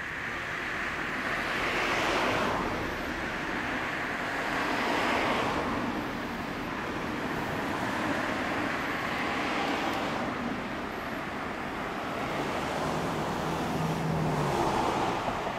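Road traffic: cars passing by one after another, each swelling and fading, four times in all.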